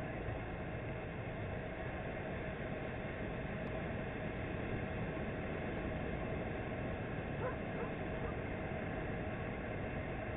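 Steady, even rush of ocean surf breaking along a sandy beach, heard from the shore. There is a faint short call about seven and a half seconds in.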